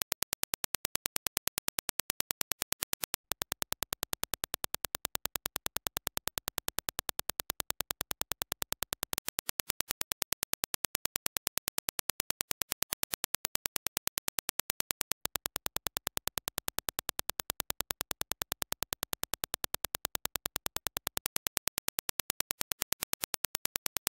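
Reference Dirac impulse test signal: a steady, evenly spaced train of identical sharp clicks, several a second.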